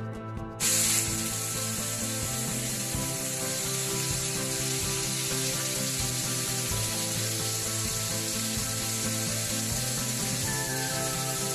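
Flour-coated chicken pieces deep-frying in a pan of hot oil: a steady sizzling hiss that starts suddenly about a second in, loudest at its onset, over background music.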